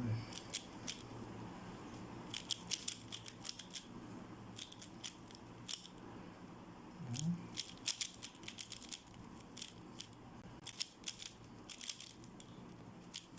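3x3 speed cube being turned rapidly by hand: its plastic layers click in quick flurries with short pauses between, as in a speedsolve. A short low vocal sound rises in pitch about seven seconds in.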